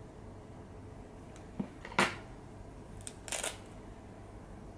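Pet nail clippers snipping a cat's claws: a few short, sharp clicks, the loudest about two seconds in and a quick double snip a little later.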